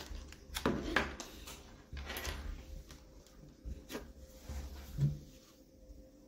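Handling noise close to the microphone: several light knocks and clicks with a low rumble, the loudest about a second in and again about five seconds in.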